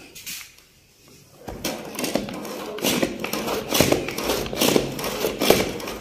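Hand-pressed plunger food chopper pumped rapidly on raw chicken chunks: plastic clacking strokes about three a second, starting about a second and a half in. The chopper cannot cope with the meat, and the chunks stay largely uncut.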